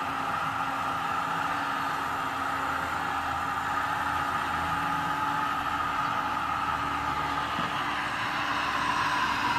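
Radio-controlled scale model vehicle running with a steady whine that dips slightly in pitch near the end.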